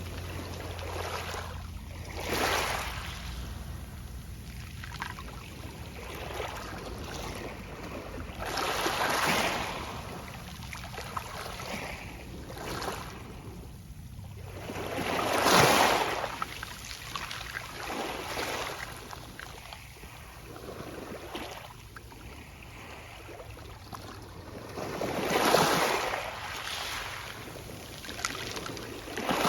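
Gentle sea waves rolling onto a pebble beach, each wash rustling the pebbles, swelling and fading every few seconds. The biggest breaks come about halfway through and near the end.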